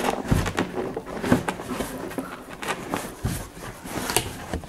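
Cardboard shipping box and packaging being handled as items are lifted out: a string of short scrapes, rustles and light knocks, a few a second apart.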